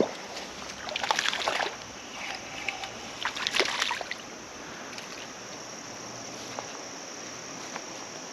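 A small hooked smallmouth bass splashing and thrashing at the water's surface as it is brought in, in two short bouts about a second in and again near four seconds, over the steady rush of running creek water.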